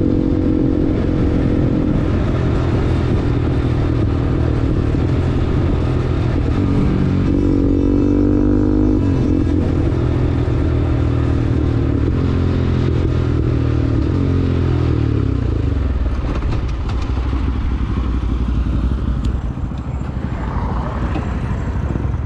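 Bajaj Pulsar NS200's liquid-cooled single-cylinder engine through an aftermarket R9 racing exhaust, with a bassy note. The revs climb about seven seconds in, then fall away slowly over several seconds and settle to a low steady note.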